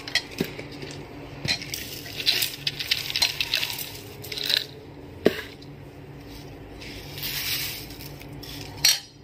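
Thin, dry flattened rice flakes (poha) rustling as they are scooped with a plastic measuring cup and handled in a stainless steel bowl, with scattered light clicks of the cup against the steel. The rustling comes in short bursts, and a sharp click about five seconds in is the loudest.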